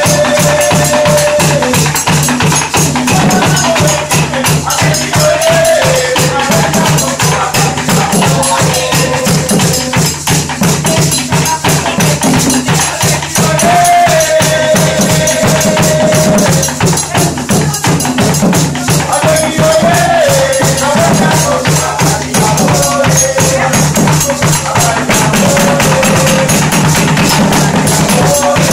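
Afro-Surinamese drumming: apinti and other peg-tuned hand drums played in a steady interlocking rhythm, with sticks clacking on a wooden kwakwa box, under singing voices that repeat a melodic phrase every few seconds.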